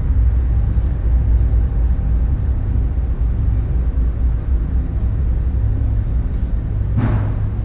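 Steady low rumble throughout, with a rubber stamp knocking down once onto a passport booklet on the counter near the end.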